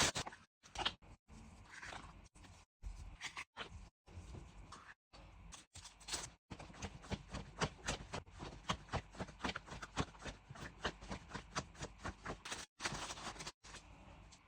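Small craft supplies and their packaging being handled and unpacked: rustling and scraping, then a steady run of sharp clicks, about five a second, through the middle, and a burst of rustling near the end.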